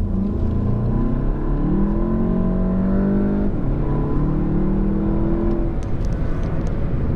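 MK7 Volkswagen GTI's turbocharged 2.0-litre four-cylinder pulling hard under acceleration, its note rising in pitch. About three and a half seconds in the revs drop sharply as the DSG dual-clutch gearbox upshifts, then the engine climbs again before easing off.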